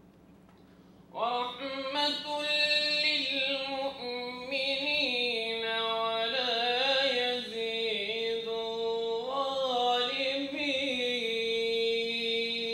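A solo voice chanting a long, drawn-out melody in one continuous phrase with wavering, ornamented pitch. It starts about a second in and ends on a long held note.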